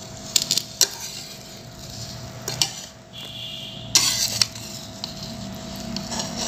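Metal ladle scraping and knocking against the inside of an aluminium pressure cooker while turning over cooked rice: a few scattered clicks and scrapes, with a longer scrape about four seconds in. A faint steady hum runs underneath.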